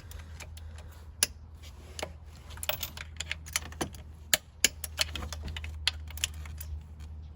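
Hand ratchet clicking in short, irregular runs as it tightens the thermostat housing bolts down snug, over a steady low hum.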